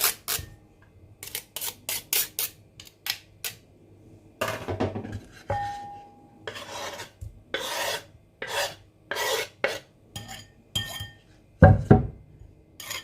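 Grated garlic being scraped from a grater into a bowl: an irregular run of short rasping scrapes, with a brief ringing clink about six seconds in and a solid knock near the end.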